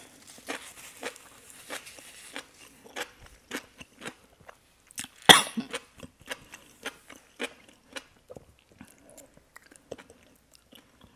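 Close-up chewing of sauce-coated enoki mushrooms, a steady run of short wet mouth sounds about two a second. There is one louder, sharper sound about halfway through.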